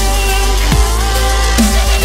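Electronic dance music with a heavy bass and a bass-drum beat a little faster than once a second.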